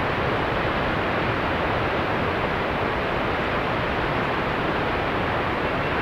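Helmcken Falls, a high waterfall, giving a steady, unbroken rush of falling water.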